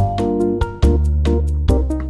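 Background music: an upbeat instrumental with a steady beat, keyboard-like notes and a bass line.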